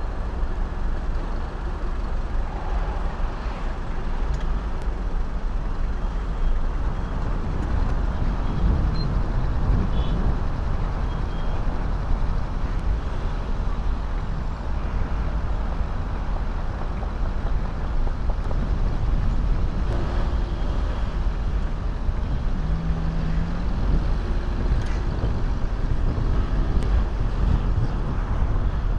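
Road traffic at a city intersection: cars driving past in a steady rumble.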